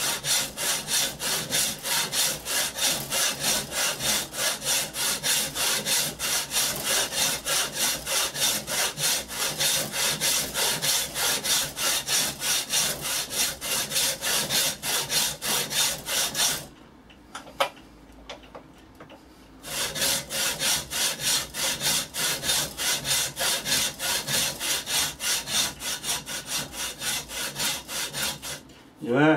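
Fine-toothed frame saw cutting into a block of reddish hardwood in quick, even back-and-forth strokes. The sawing pauses for about three seconds just past the middle, resumes, and stops briefly near the end.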